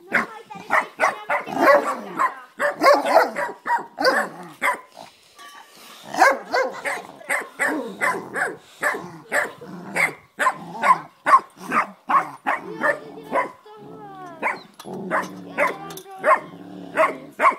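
Dogs play-fighting, an American Akita and a blue merle border collie, barking and growling in a quick, steady run of short barks.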